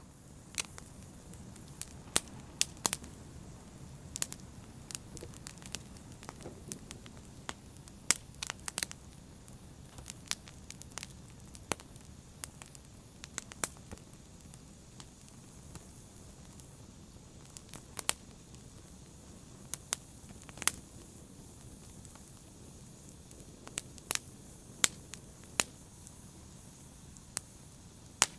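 Wood fire burning in a fireplace: sharp, irregular crackles and pops, a dozen or so standing out, over a steady low rumble of the flames.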